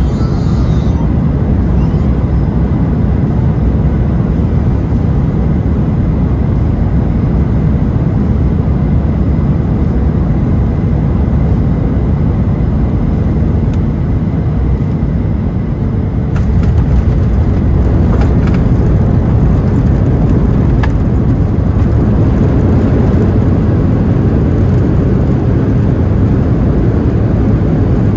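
Loud, steady low rumble of an airliner's engines and airflow heard inside the passenger cabin. About sixteen seconds in it grows a little louder, with some light rattling.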